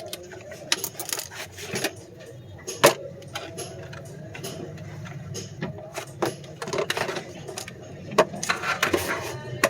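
Irregular clicks and taps of small hard objects being handled, with a faint murmur of voices underneath.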